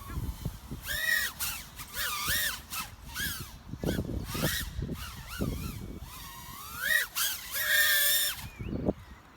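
FPV racing quadcopter's brushless motors whining, the pitch swooping up and down again and again with sharp throttle changes, over a gusty rumble of wind.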